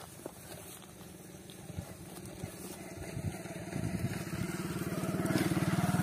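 A motor vehicle's engine running, growing steadily louder through the second half as it comes closer.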